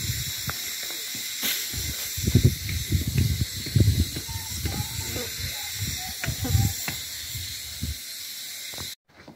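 Outdoor hillside ambience: a steady high hiss under irregular low rumbling bumps of wind buffeting the microphone. It cuts off abruptly near the end.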